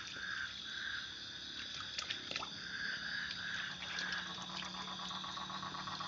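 Frogs calling at night in a pond: short calls repeated about twice a second over a steady high-pitched chorus. From a little past halfway, a fast rattling trill joins in.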